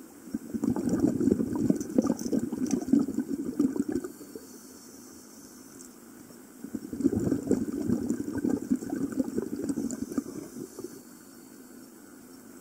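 Scuba exhaust bubbles gurgling out of a regulator underwater: two long exhalations, each lasting about four seconds, with a quieter pause for the inhale between them.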